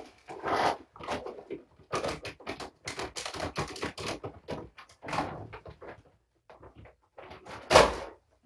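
Quick, irregular clicking and rattling, like small objects being handled or knocked about, with one loud bump near the end as a kitten comes up against the camera.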